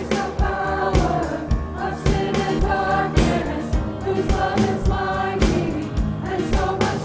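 Church choir of mixed voices singing with instrumental accompaniment, over a steady beat of about two strokes a second.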